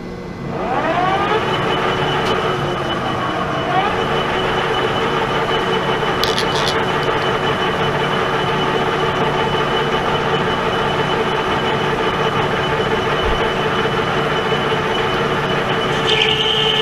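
Pratt & Whitney Model B engine lathe taking a 20-thousandths cut across a stainless steel bar: steady machine noise with a high ringing tone, the cut starting about half a second in and running on evenly.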